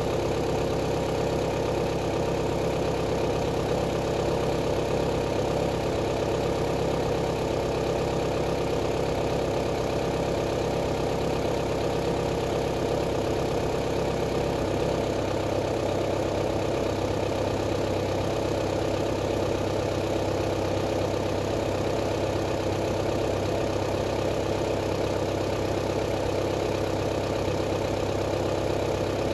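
VW Passat B4 1.9 TDI four-cylinder diesel idling steadily in hard frost shortly after a cold start, running unmuffled because its exhaust system is missing. The idle note shifts slightly about halfway through.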